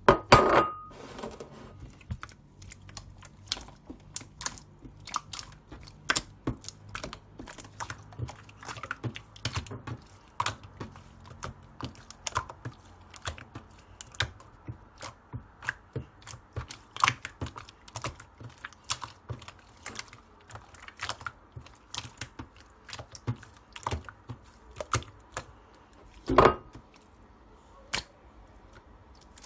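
Large sky-blue slime being squeezed and worked by hand, giving a dense, irregular stream of sharp little clicks and pops. Two louder bursts stand out, one at the start and one near the end.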